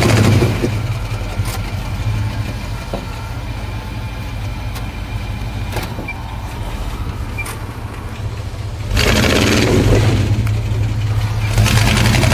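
Pickup truck engine running at low revs as the truck crawls over rocks, getting louder under throttle about nine seconds in and again near the end.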